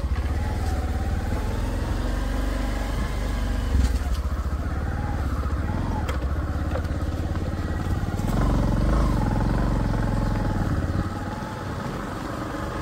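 Bajaj Platina motorcycle's single-cylinder engine running while the bike is ridden, the engine note wavering up and down with the throttle. It gets louder for a few seconds past the middle and eases off near the end.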